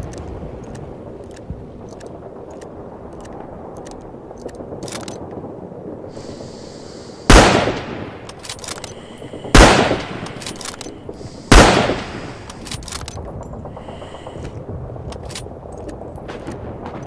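Lee-Enfield bolt-action rifle fired three times, about two seconds apart, each sharp shot followed by a short fading echo, with scattered small clicks between.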